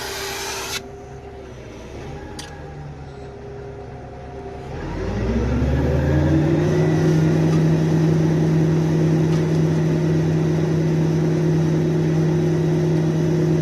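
A motor starts about five seconds in, speeds up over about a second, then runs at a steady hum.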